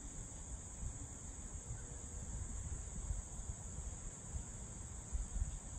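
Steady, high-pitched drone of an insect chorus, with a low, uneven rumble underneath that swells briefly near the end.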